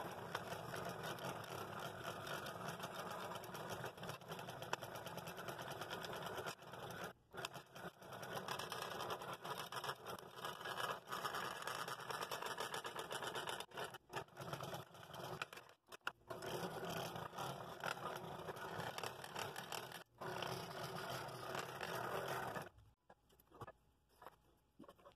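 Scroll saw running, its reciprocating blade cutting a compound cut through a wooden block, steady with a few short pauses. The saw falls quiet a couple of seconds before the end.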